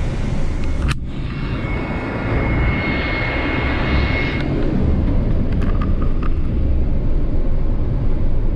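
Intercity coach bus driving at road speed: a steady low rumble of engine and tyres on the road with rushing wind noise, and a sharp click about a second in.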